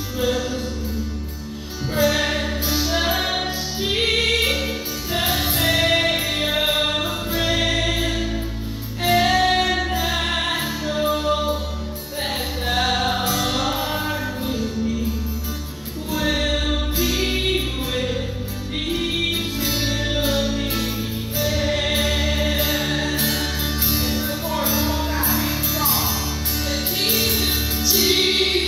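Live worship song: women singing a melody at the microphones over a small band's accompaniment, with a steady low bass underneath.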